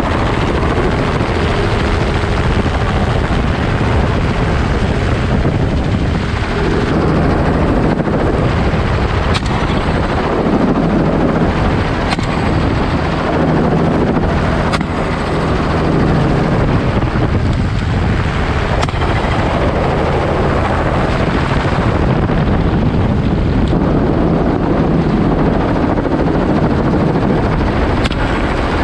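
Helicopter rotor and turbine noise, steady and loud, heard from the open door of the cabin with wind buffeting the microphone.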